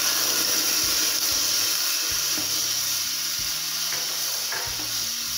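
Wet ground coconut chutney poured into hot coconut oil in a small pan, sizzling loudly as it is tempered, the sizzle easing off slightly toward the end.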